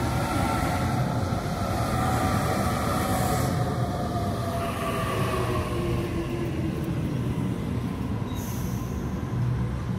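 Sydney Trains double-deck electric train running past on the track: a steady rumble of wheels on rail with a motor whine that slowly falls in pitch. A second train passes close by near the end.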